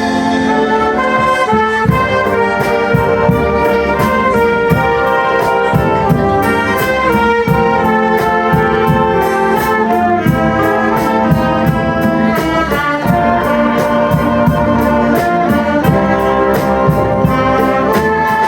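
Wind band playing: a brass melody of trumpets and trombones over a steady drum beat.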